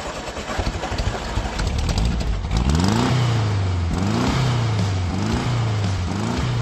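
A car engine running, then revved about four times from roughly halfway through, each rev rising in pitch.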